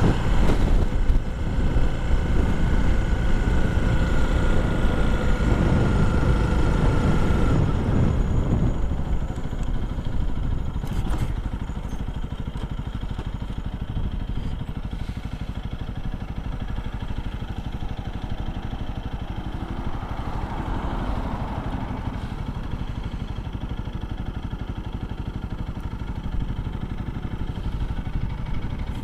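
Honda CRF300L's single-cylinder engine running as the motorcycle is ridden, heard from on the bike. It is louder for the first nine seconds or so, then settles quieter and steadier.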